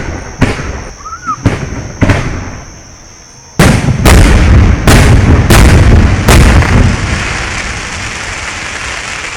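Aerial fireworks shells bursting with sharp bangs: four spaced bangs in the first two seconds, then from about three and a half seconds in a louder barrage of about five bangs in quick succession, their rumbling echo dying away over the last few seconds.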